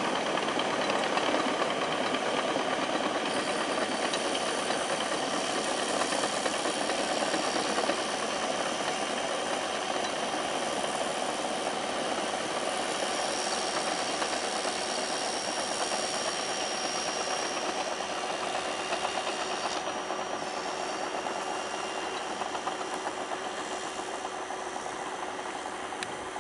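Crawler bulldozer's diesel engine running steadily as it pushes fill along an embankment.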